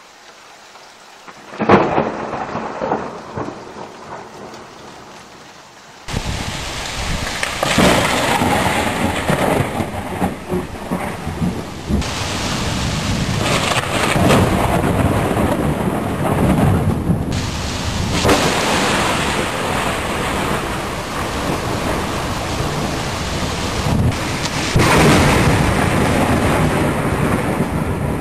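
Thunderstorm: a sudden sharp thunderclap a couple of seconds in that rumbles away, then steady heavy rain with repeated rolls of thunder swelling and fading.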